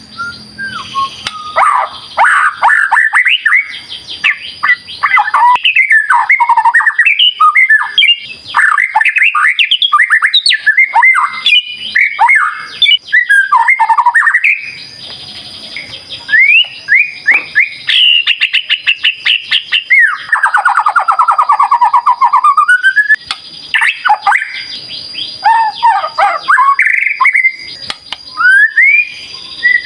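White-rumped shama singing a long, varied song of quick rising and falling whistles mixed with harsher notes. About two-thirds of the way through comes a rapid run of notes sweeping down and back up.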